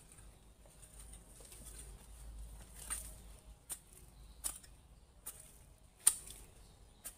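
Garden rake pulled through loose soil, a sharp scratching stroke about once every second, the loudest one near the end.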